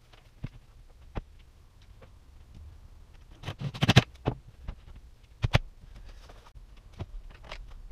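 Scattered knocks and clicks from handling hung wooden wall cabinets. There is a cluster of louder knocks about halfway through and one sharp knock shortly after, with a few light clicks between them.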